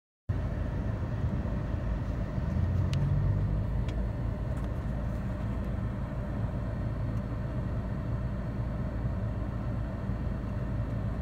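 Car engine and road rumble heard from inside the cabin while driving, with the engine note briefly louder about two to three seconds in.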